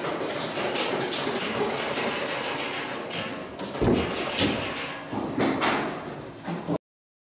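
A wooden cabinet being searched by hand: rustling and clattering with many small knocks, and a heavier thud about four seconds in. The sound cuts off suddenly near the end.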